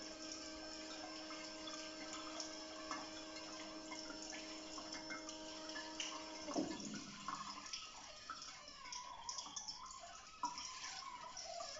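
A brass kinetic fountain sculpture running: a steady hum from its mechanism stops with a falling whine about six and a half seconds in, as its spinning wheel comes to rest. Water trickles and drips into the basin throughout.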